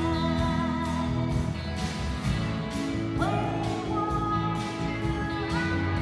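A live rock band playing a song: drums with cymbal strokes about twice a second, bass, guitars and keyboard, with a lead vocal over the top.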